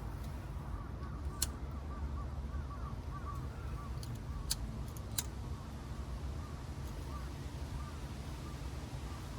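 Wind buffeting the microphone in a low, steady rumble. Behind it a bird chirps over and over, and three sharp clicks come in the first half.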